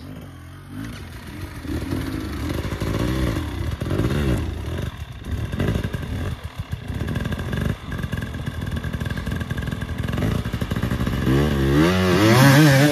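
KTM enduro motorcycle engine revving up and down in repeated bursts under load as the bike climbs a steep, root-covered forest slope, with the loudest, rising-and-falling revs near the end.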